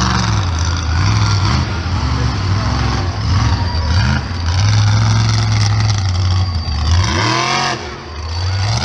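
Monster truck engine running hard at high revs as a steady drone, then, about seven seconds in, revving up and down in a few quick surges as the truck launches into a jump.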